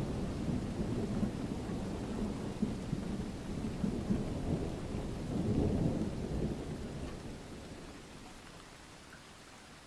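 Thunder rumbling low over rain, swelling about six seconds in and then dying away, leaving a faint rain hiss near the end.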